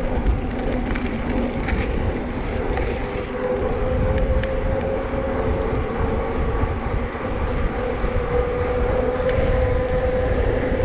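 Wind rumbling on the microphone of a handlebar-mounted action camera as a full-suspension mountain bike rolls along asphalt, with a steady hum from the tyres on the road.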